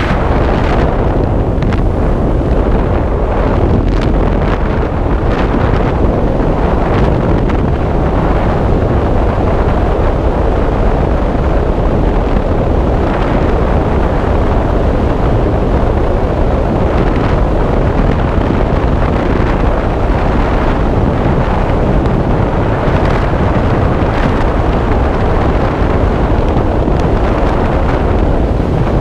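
Freefall airflow blasting over the camera microphone: a loud, steady rush of wind noise with no letup.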